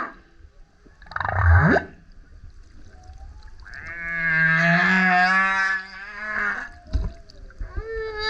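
Male humpback whale singing: a short sweeping unit about a second in, then a long pitched call with many overtones lasting about three seconds, and a brief low knock near the end.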